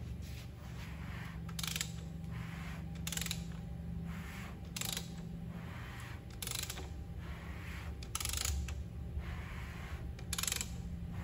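A socket ratchet on the crankshaft nose of a 528 cubic inch Gen 2 Hemi, turning the crank over by hand. The ratchet clicks in short runs about every second and a half, six times in all, over a steady low hum.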